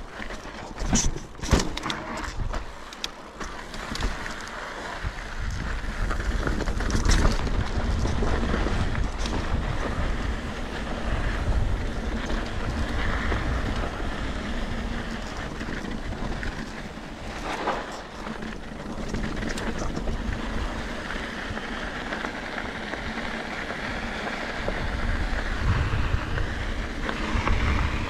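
Mountain bike riding a downhill dirt trail: wind buffeting the microphone over the rolling noise of the tyres, with sharp rattles and knocks from the bike over rough ground, most of them in the first couple of seconds.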